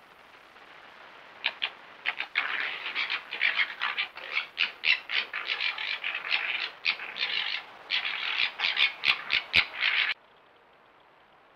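Red foxes chattering: a rapid, stuttering run of short, harsh calls, several a second, starting about a second and a half in and cutting off suddenly near the end.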